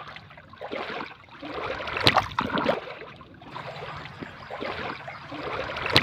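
Water in a small, shallow stream splashing and trickling in irregular surges, with two sharp knocks, one about two seconds in and one near the end.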